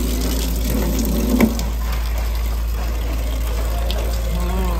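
Water running and splashing as a large batch of grated bottle gourd is rinsed, with a brief knock about a second and a half in.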